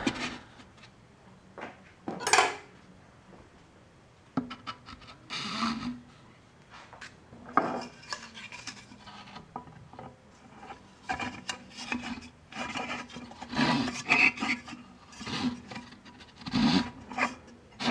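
Irregular scraping and rubbing, with a few sharper knocks, as a cardboard tube is worked into a pot and a threaded metal rod is slid through holes in the cardboard.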